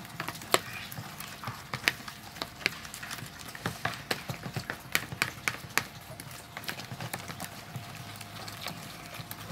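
A utensil stirring thick fish-bait paste in a plastic bowl, tapping and scraping against the bowl's side in irregular clicks, several a second and uneven in loudness.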